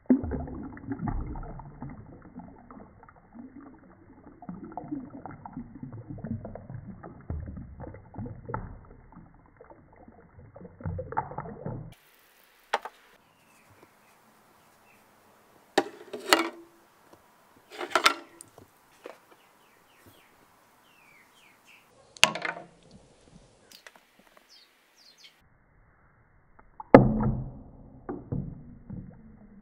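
Water being poured from a glass jar into the metal tank of an ultrasonic cleaner, splashing and gurgling for about twelve seconds, then a quiet stretch with a few sharp clicks, then pouring again near the end.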